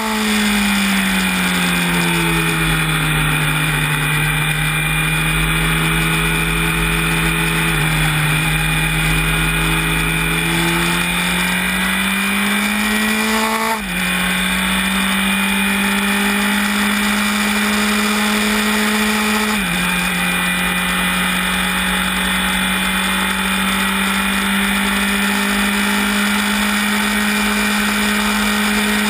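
Honda CB1000R's inline-four engine heard from the bike: revs fall and hold low through a bend, then climb under hard acceleration, with a sudden drop in revs at an upshift about halfway through and another about two-thirds through. Steady wind rush underneath.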